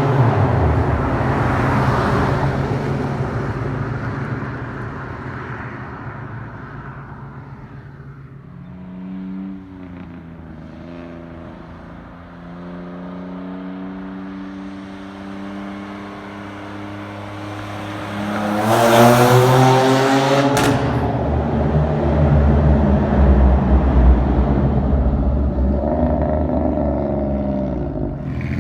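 Straight-piped Pontiac G6 exhaust. The engine note fades away over the first several seconds and runs low and steady for about ten seconds. Near two-thirds of the way through, it climbs sharply in pitch and loudness under hard acceleration and stays loud.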